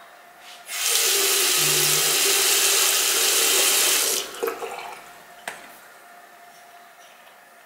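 Water runs from a single-lever bathroom tap into a ceramic washbasin, over an electric toothbrush head held under the stream, for about three and a half seconds before the tap is shut off abruptly. A few light knocks follow, then one sharp click.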